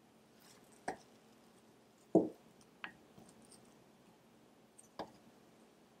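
Wooden utensils cutting into and scooping a soft chocolate mug cake in a ceramic mug. There are a few light clicks of wood against the mug, and about two seconds in comes one louder, duller soft knock.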